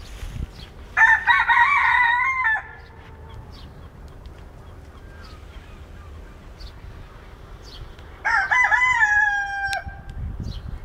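Rooster crowing twice, each crow lasting about a second and a half, the first about a second in and the second near the end.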